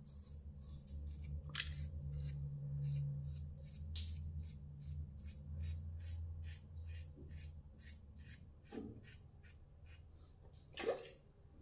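Safety razor scraping through lathered stubble on the first pass of a wet shave: a rasp in short, even strokes, about four a second, with a low hum under the first half and one louder stroke near the end.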